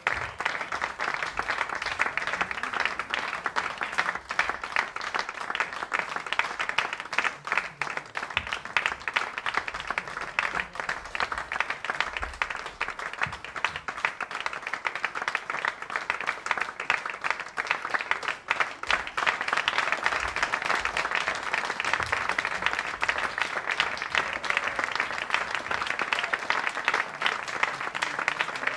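Theatre audience applauding: a dense, even clatter of many hands clapping.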